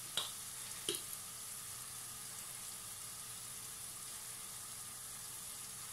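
Chopped onion and garlic sizzling gently in oil in a nonstick frying pan, a soft steady hiss. Two light clicks sound within the first second.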